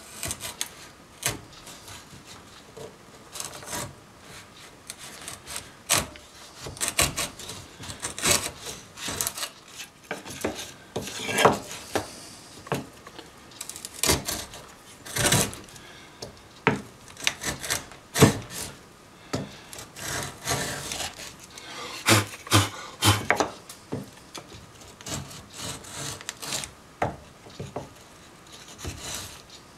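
Stanley No. 71 router plane's blade paring wood from the bottom of a groove across the grain, a run of short, irregular scraping strokes with brief pauses between them. It is taking out the last of the waste to level the groove's bottom flat.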